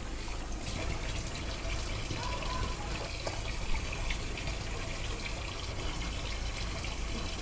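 Water running and trickling steadily into a kitchen sink as soaked sago pearls are drained, with a few faint clicks.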